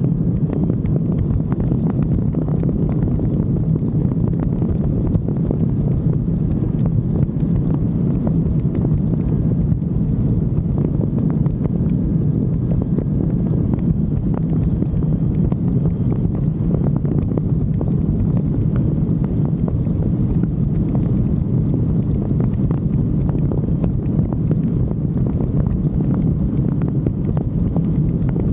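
Kawasaki Ultra 310LX jet ski's supercharged four-cylinder engine running steadily at speed, under a constant rush of water and wind buffeting the microphone.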